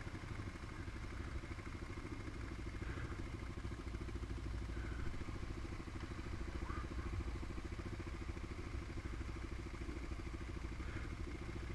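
Quad (ATV) engine running steadily at low revs as it wades through deep water.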